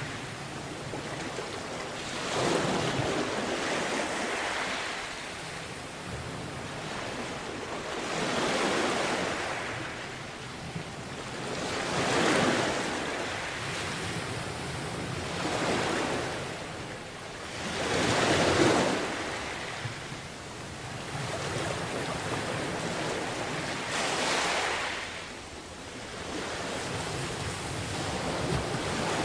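Sea waves washing onto a beach, a steady hiss of surf that swells and falls back again about every three to six seconds.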